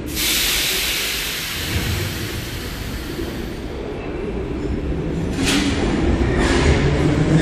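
Kyiv Metro train pulling out of a station. A sudden loud hiss of released air starts it off and fades over about three seconds, then the rumble of the wheels and motors grows as the train gathers speed past the platform.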